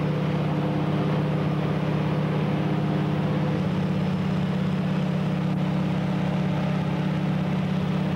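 Light seaplane's engine and propeller droning steadily in flight, heard from inside the cabin.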